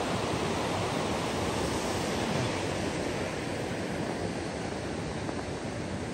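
River rapids rushing over rock below a footbridge: a steady, even sound of white water.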